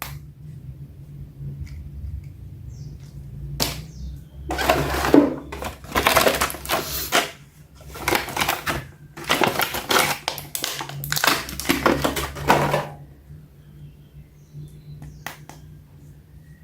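Plastic toy packaging crinkling and rustling in bursts as it is handled and opened, over a low steady hum.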